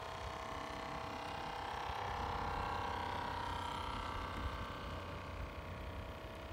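Radio-controlled model of the Orca fishing boat under way, its motor giving a steady whine of several high tones that eases slightly in the second half as the boat moves away, over a low rumble.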